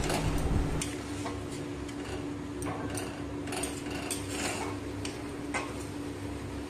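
Metal spatula scraping and clinking against a kadai as a wet onion and spice masala is stirred and fried down, in irregular clicks about once a second. A steady hum runs underneath.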